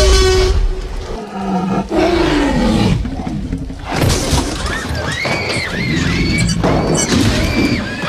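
Music-led dubbed soundtrack with roar-like sound effects. A low, falling growl comes about two seconds in, and from about five seconds there is a run of short rising-and-falling tones.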